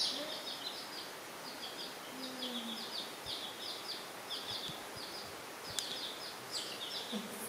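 Baby chicks peeping: short, high, falling chirps in quick runs of two or three, repeating throughout.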